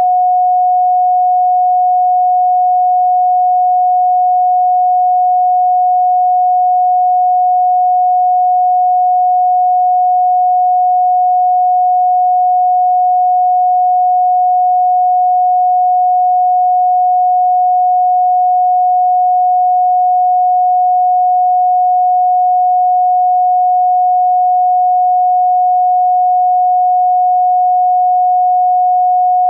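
Pure sine tone at 728.131 Hz, held steady and unchanging, with no overtones.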